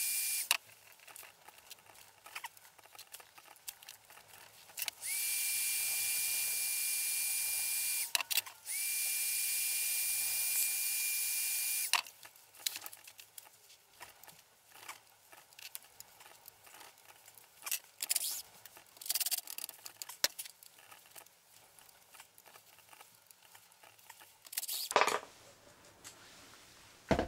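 Black+Decker heat gun blowing in three stretches, a steady hiss with a high whine that slides up briefly each time it is switched on, heating a stuck battery-compartment screw to soften its threadlocker. Between and after the stretches come small clicks of hex keys and tools on the screws, and near the end a short burst from a cordless driver.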